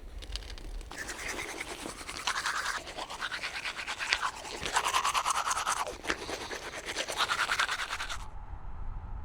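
Teeth being brushed with a toothbrush: fast, rhythmic scrubbing strokes that shift in tone as the brush moves around the mouth, stopping abruptly near the end.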